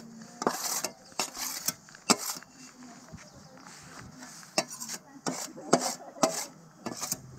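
Pane glass being worked loose and lifted out of an old wooden window frame: irregular sharp clinks and knocks of glass against wood, with scraping in between.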